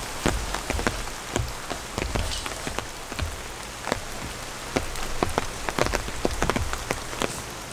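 Rain falling steadily, with many large drops hitting a nearby surface as sharp, irregular taps, several a second, over a constant hiss.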